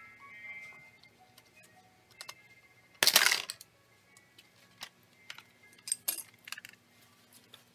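Soft background music fades out at the start. Then comes handling noise from laptop disassembly: a brief loud scrape about three seconds in, followed by a scatter of small clicks from screws and a screwdriver against plastic and paper.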